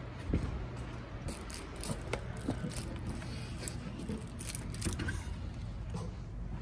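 Footsteps and a string of clicks, knocks and rattles as someone walks through a glass entrance door into a building, over a steady low rumble of phone-handling noise.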